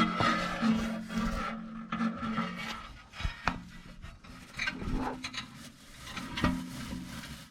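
Wire coat hanger scraping and rubbing inside a fifth-wheel's metal hitch pin box, raking out nesting material in irregular strokes with scattered clicks.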